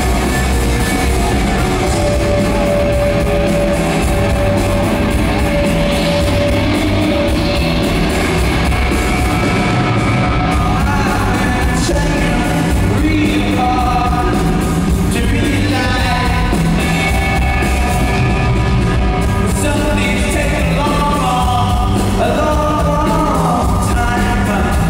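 Live rock band playing loudly in an arena: electric guitars, bass and drum kit, with a male lead vocal coming in about halfway through.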